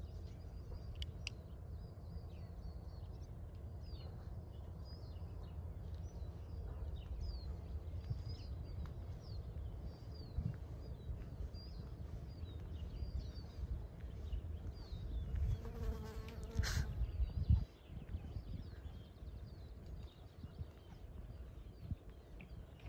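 Outdoor ambience: small birds chirping again and again over a steady low rumble, with one brief louder sound about sixteen seconds in.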